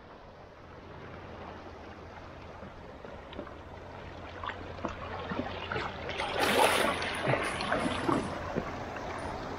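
Seawater washing and splashing among shoreline rocks as a hooked hound shark is dragged through the shallows, with the loudest splashing about six to seven seconds in. A steady low rumble sits underneath.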